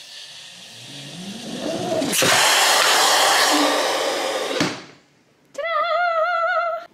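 Central vacuum system running: its suction noise drops away, then the motor winds back up with a rising whine and runs loudly for about two and a half seconds before shutting off. Near the end comes a short, high, wavering vocal sound.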